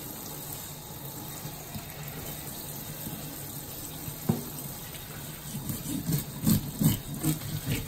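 Kitchen tap running in a steady stream onto fish in a stainless steel sink as gloved hands rinse and rub them. A single sharp knock about four seconds in, then irregular thumps and splashes as a fish is turned and scrubbed under the stream.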